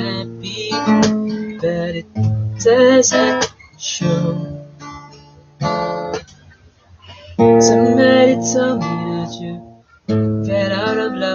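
Acoustic guitar strummed, one chord every second or two, each left to ring and die away, with short gaps between phrases.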